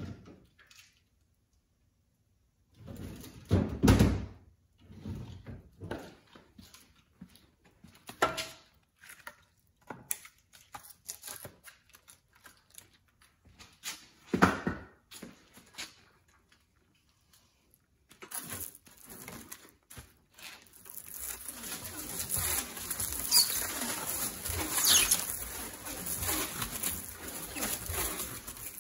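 Split firewood pieces knocking as they are set into a hand-crank firewood bundler's steel cradle, a few separate thunks. From about twenty seconds in, plastic stretch film crackles and hisses steadily as it unwinds around the bundle, with a few short squeaks.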